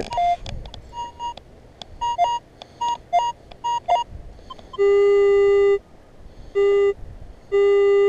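Minelab X-Terra 705 metal detector beeping over a buried target: short higher beeps for the first few seconds, then three longer, louder, lower steady tones from about five seconds in.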